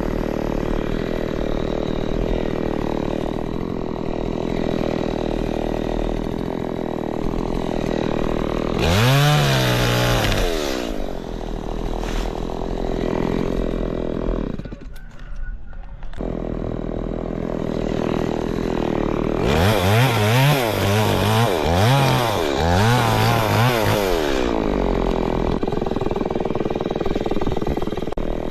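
Chainsaw engine running at idle, revved up to full throttle twice: a short burst about a third of the way in and a longer run of about five seconds later, its pitch wavering under load.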